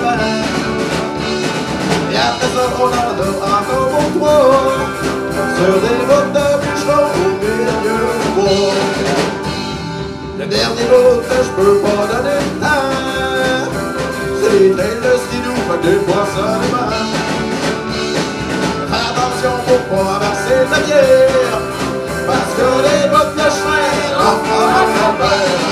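Live rock band playing amplified: electric bass, guitar and drums, with singers on microphones.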